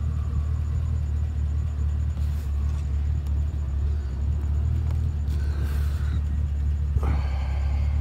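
Steady low rumble throughout, with a faint, brief voice-like sound near the end.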